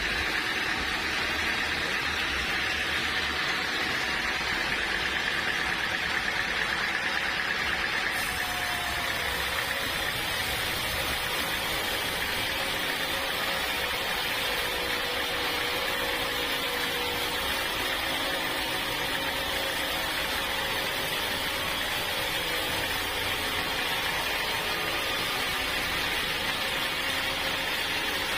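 Sawmill machinery running steadily with a continuous mechanical drone and a high whine, as hard acacia wood is sawn. The sound grows slightly hissier about eight seconds in.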